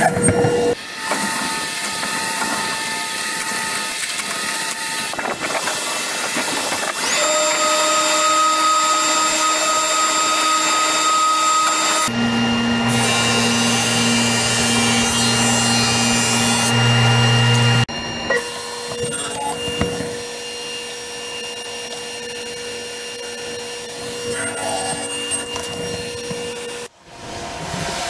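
Woodworking power tools running steadily in a series of short shots: a table saw at the start, then, a little before halfway, a drum sander with its dust hose, a steady humming drone while wood panels are fed through to bring them to final thickness. The sound changes abruptly between shots.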